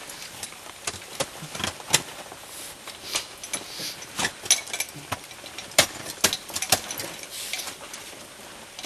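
Climbing gear knocking and scraping on rock and ice as a climber moves up the wall, with metal hardware clinking: a string of irregular sharp clicks and scrapes, loudest about two seconds in and again around six to seven seconds.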